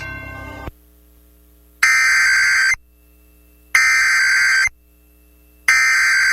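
Emergency Alert System SAME digital data bursts: three identical harsh, buzzy screeches about a second long each, spaced about two seconds apart. This is the coded header that announces an alert on NOAA Weather Radio. A shorter, quieter buzzy burst comes right at the start.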